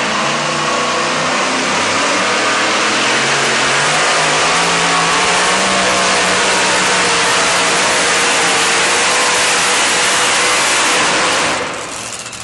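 Two-wheel-drive pulling truck's supercharged engine running flat out under load as the truck drags a weight-transfer sled, loud and sustained. The sound falls away near the end.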